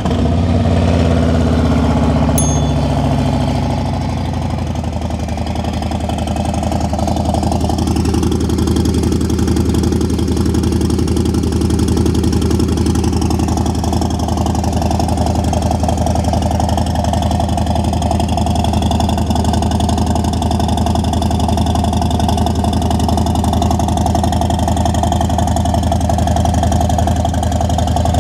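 Cold start of a 2023 Harley-Davidson Road Glide ST's Milwaukee-Eight V-twin through a Fuel Moto Contender 2-into-1 stainless exhaust with its baffle insert pulled out. The engine runs high at first and settles over the first few seconds into a steady idle.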